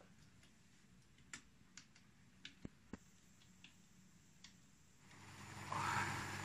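Computer keyboard keys pressed slowly and irregularly: a beginner practising touch typing, heard as a few scattered faint clicks. About five seconds in, a steady hiss and low hum rise and take over.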